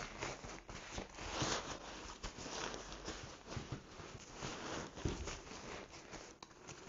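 Nylon fabric rustling and crinkling in irregular bursts with small clicks as a stuffed tent in its stuff sack is pressed and shaped into the top of a lightweight rucksack.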